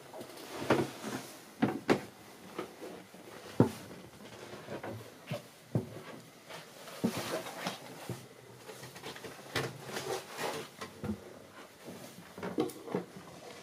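Irregular knocks, clicks and light thumps of someone walking through a yacht's wooden cabin interior and past its doors, with some handling noise.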